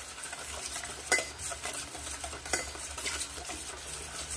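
A spoon stirring a soy sauce and calamansi marinade in a stainless steel bowl: liquid swishing, with the spoon clinking against the side of the bowl, the sharpest clink about a second in and a few lighter ones after.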